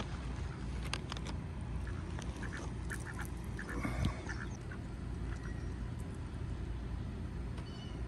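Mallard ducks quacking in short calls while feeding on mealworms, with scattered short clicks, over a steady low rumble.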